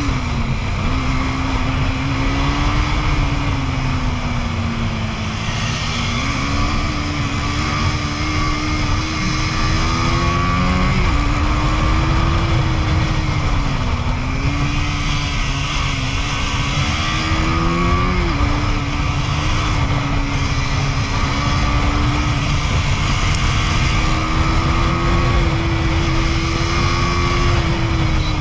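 KTM Duke 250's single-cylinder engine running under way. Its pitch climbs slowly under throttle and drops suddenly a few times, as at gear changes.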